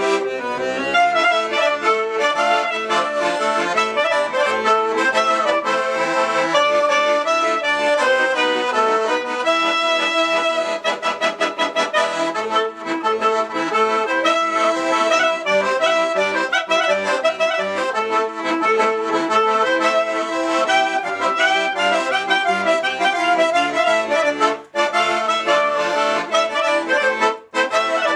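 Accordion and clarinet duo playing a klezmer tune, the clarinet carrying the melody over the accordion, with two very short breaks in the sound near the end.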